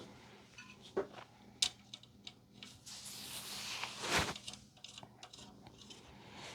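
Light handling noises from circuit boards and small hardware being put together: a couple of sharp clicks, a brief rustle, and a knock about four seconds in.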